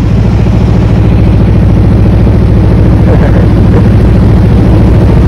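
A wooden river passenger boat's engine running steadily under way, heard from inside the covered cabin: a loud low drone with a fast, even throb.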